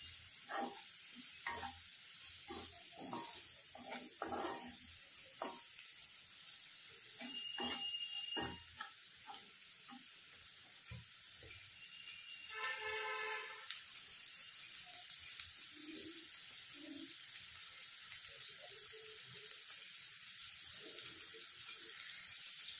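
Chopped onion, green chilli and spices frying in oil in a stainless steel pan, with a steady high sizzle. A spatula scrapes and taps the pan in quick strokes through the first half, then is mostly still.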